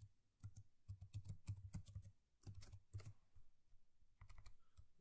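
Faint typing on a computer keyboard: quick, irregular keystrokes in short runs with brief pauses between them.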